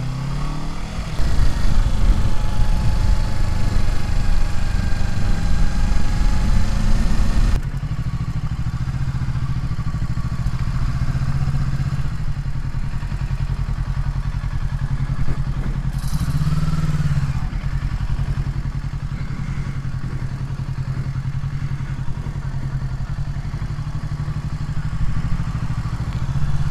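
Motorcycle engine running under way, heard through the helmet microphone with heavy wind noise and the engine note gliding up and down with the throttle. After an abrupt cut it runs lower and quieter at low speed, with one brief rev about two-thirds of the way through.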